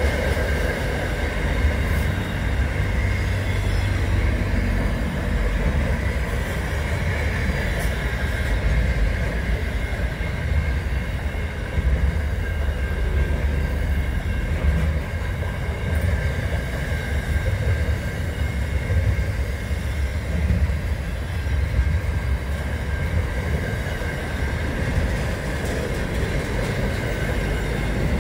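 Container freight train wagons rolling past close by: a steady heavy rumble of wheels on rails, with a steady high-pitched tone from the wheels over it.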